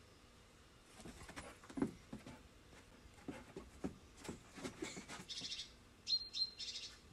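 Birds chirping on the soundtrack of a TV squirrel video, in short high clusters, the strongest about six seconds in. Between about one and five seconds in there is a run of short low sounds, the loudest near two seconds in.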